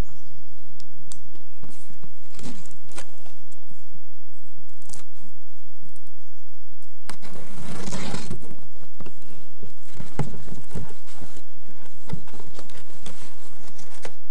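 A cardboard shipping box being opened by hand: scattered scrapes, knocks and crinkling, with one longer, louder tearing sound a little past halfway.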